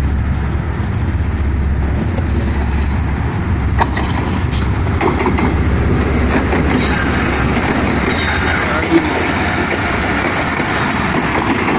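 Pakistan Railways diesel locomotive and passenger coaches passing close by on the track. A steady low rumble in the first half gives way to the broader rolling noise of the coaches' wheels, with a few sharp clicks.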